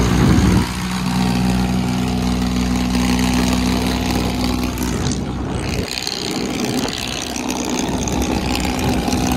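Farmtrac 60 tractor's diesel engine running at road speed alongside a motorcycle, a steady engine hum mixed with the motorcycle's own engine and wind rushing over the microphone. The steady hum drops away about six seconds in, leaving mostly wind and road noise.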